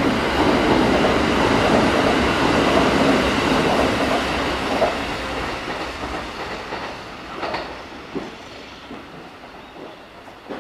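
Kintetsu limited express electric train passing through a station at speed. The rush of running and wheel noise is loud at first and fades over the next several seconds as the train moves away. Near the end a few faint wheel clacks sound over the rail joints.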